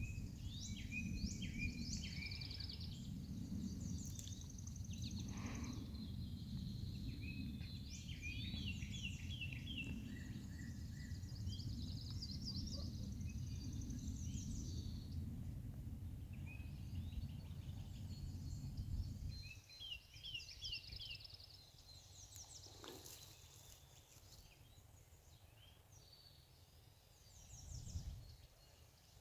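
Songbirds singing and chirping in short repeated trills, over a low rumble that stops about two-thirds of the way through.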